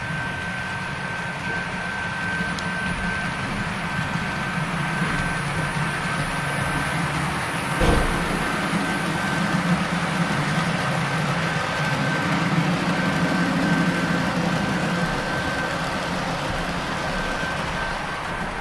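Model train running on the layout track: a steady rumble from the diesel locomotive and rolling freight cars, with a constant high whine throughout. One sharp knock about eight seconds in.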